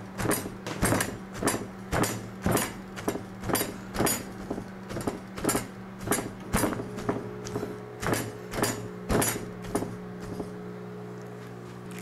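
Small sledgehammer, its head wrapped in a plastic bag, pounding boiled potatoes in zip-top bags on a wooden table to mash them, about two blows a second; the blows stop about ten seconds in. A steady hum runs underneath.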